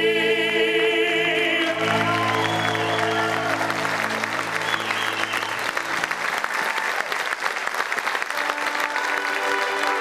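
A children's choir and a male tenor hold the song's final chord, which cuts off about two seconds in; audience applause breaks out and continues over a held accompaniment chord that fades out by about six seconds. Near the end, steady musical notes come back in under the applause.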